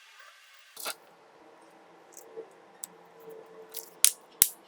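Scattered light clicks and taps of small hard objects being handled, ending in two sharp clicks about a third of a second apart, the loudest sounds.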